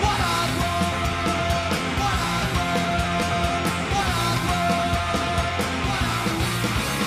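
Rock music soundtrack, a punk-style song with a steady drum beat.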